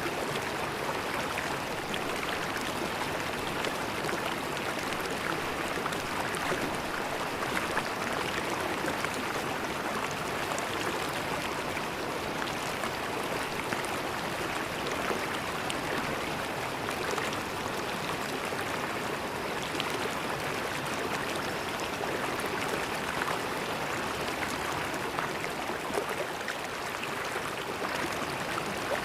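River water flowing and gurgling steadily, an even rushing with many small splashes and trickles.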